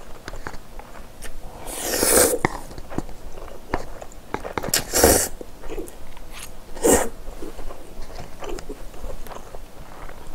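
Close-miked wet chewing of spicy stir-fried instant noodles, with many small mouth clicks. Three short, louder noisy slurps or intakes of breath come about two, five and seven seconds in.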